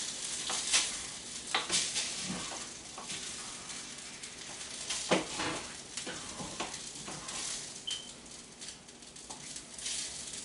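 Orzo cooking with bacon and cream in a pot, sizzling steadily while a spoon stirs it, with scattered scrapes and clicks against the pot.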